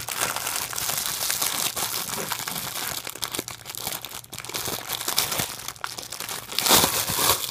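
Clear plastic bag printed with stars crinkling and rustling as hands open it and handle it, with a louder burst of crinkling near the end.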